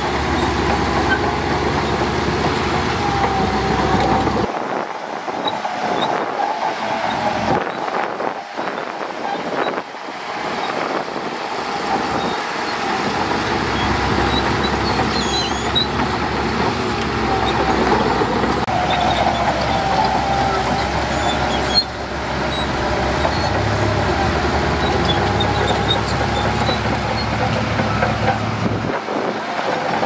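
Shantui crawler bulldozer's diesel engine running steadily under load as it pushes sand with its blade, a deep drone with a steady higher whine on top.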